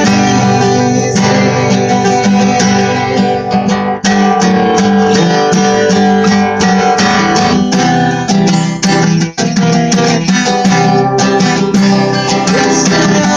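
Acoustic guitar strummed steadily, chords ringing, with one short break about nine seconds in.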